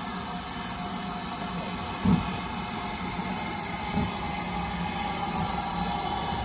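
Steam locomotive moving slowly tender-first, with a steady hiss of steam and a couple of short low thumps, about two seconds and four seconds in.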